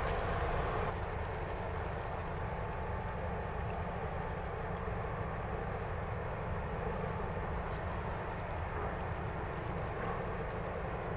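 Large bulk carrier's engine and propeller making a steady low rumble with a faint hum as the ship passes close by.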